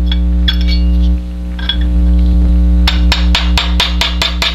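Small hammer tapping a punch to drive the extractor pin deeper into a Sig Sauer 1911 slide: a couple of single taps, then from about three seconds in a quick run of light taps, about five a second. A steady low hum underlies it.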